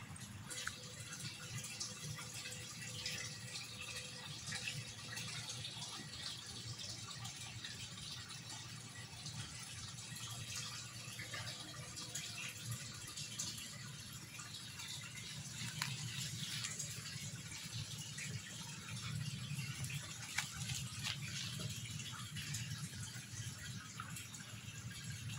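Pond water running and splashing steadily, with many small splashy ticks and a low steady hum underneath.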